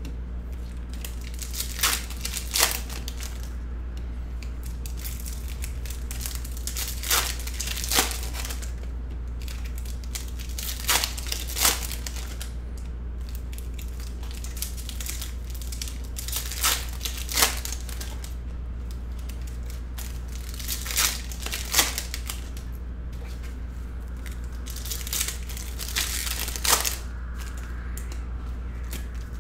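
Foil wrappers of Bowman University Chrome basketball card packs being torn open and crinkled in short bursts every few seconds, over a steady low hum.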